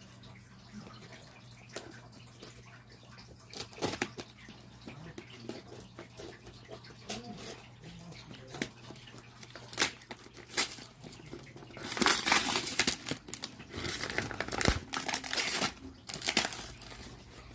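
Outer packaging being handled and torn open by hand: scattered small clicks and taps, then loud rustling and tearing for the last five seconds or so, over a faint low steady hum.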